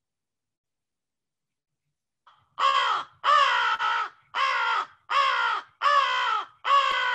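Recorded American crow cawing: a series of about six harsh caws, each about half a second long and dropping slightly in pitch, starting about two and a half seconds in.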